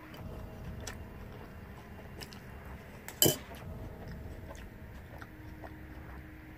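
Plastic spoon clinking and scraping against a cereal bowl, with small clicks throughout and one sharp, loud knock about halfway in as the spoon is set down in the bowl.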